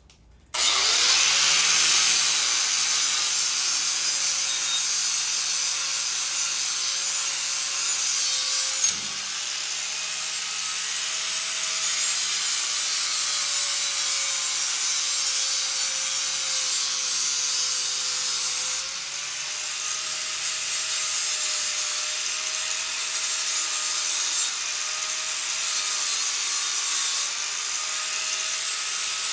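A handheld electric power tool is sanding steel bands, starting about half a second in and running loud and continuous. A motor whine drifts slightly in pitch as the load changes. The rough cut edges are being ground smooth so they won't slice fingers, and the metal is being cleaned for better welding contact.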